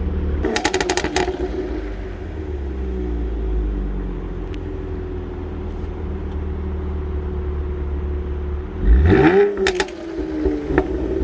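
Chevrolet Camaro V6 engine running at idle through its exhaust, with a quick run of pops and crackles about half a second in. Near the end the engine is blipped, its pitch rising quickly, and another burst of pops and crackles follows as the revs fall back.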